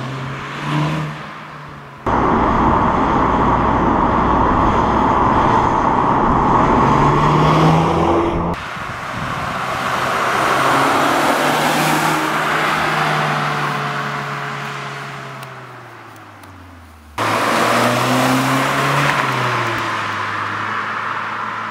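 Audi S1's 2.0 TFSI turbocharged four-cylinder engine in several cut-together shots: a short rev blip, a loud run under acceleration with the pitch climbing, then a stretch that swells and dies away with the pitch falling, and a final rev blip that settles to a steady run.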